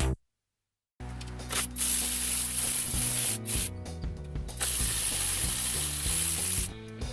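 Several bursts of spraying hiss, one short and the later ones longer, the longest about two seconds, over quiet background music. The sound drops out completely for most of the first second.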